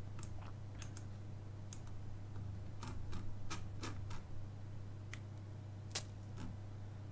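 Scattered, irregular clicks of a computer mouse and keyboard during web browsing, the loudest about six seconds in, over a low steady electrical hum.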